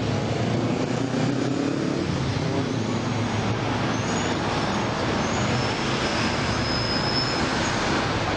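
Steady heavy road traffic: cars, buses and lorries running past at a busy roundabout, with a faint high whistling tone from about five seconds in.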